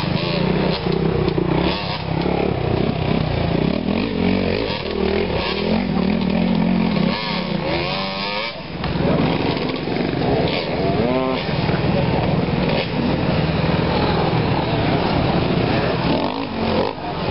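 Several enduro motorcycle engines revving under load as riders climb a steep dirt hill, the revs rising and falling again and again.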